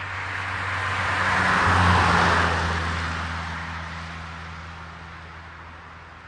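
A car passing by on an asphalt road: tyre and engine noise swells to its loudest about two seconds in, then fades away.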